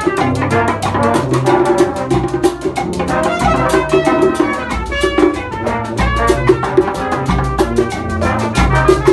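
Brass band playing an upbeat groove: brass horns over a drum kit and percussion keeping a steady beat, with low bass notes.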